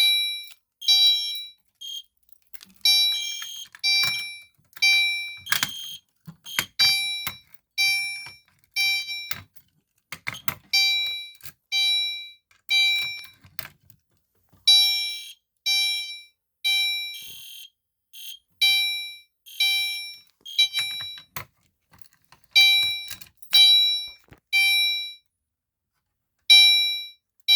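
Gentex Commander 3 chime horn strobe sounding a chime in the temporal-three fire evacuation pattern: three ringing strikes about a second apart, a pause, then the cycle again every four seconds. A few sharp clicks come in between.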